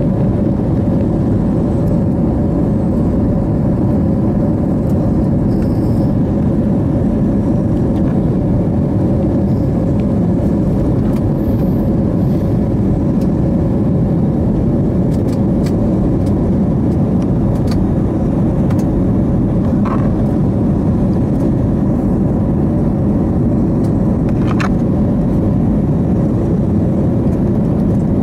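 Steady cabin noise of an airliner climbing after takeoff, heard from inside the cabin: an even jet-engine and airflow rumble with a steady hum running through it.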